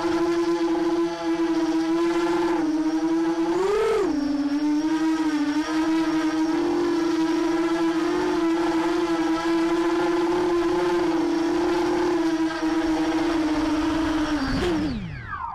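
Brushless motors and propellers of a ZMR 250 racing quadcopter (Sunnysky 2207 2100kv motors on a 4S battery) whining steadily as it flies, heard through its onboard camera. The pitch swells and dips briefly about four seconds in, and near the end it falls away quickly as the motors spin down.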